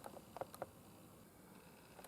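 Near silence, with a few faint short clicks in the first second.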